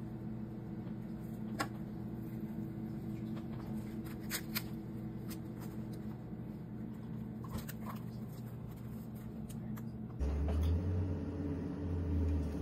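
Quiet kitchen room tone with a steady low hum, broken by a few soft clicks and taps as sandwich toppings are handled and laid on the bun. Near the end the background changes and low thuds come in.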